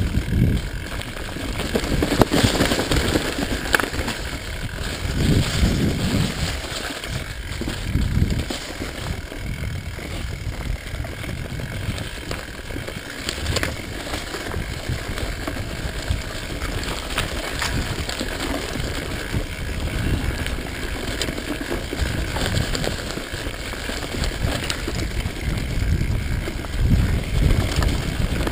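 Mountain bike descending a rough dirt singletrack: steady tyre noise on dirt with continual rattling and knocking of the bike over bumps.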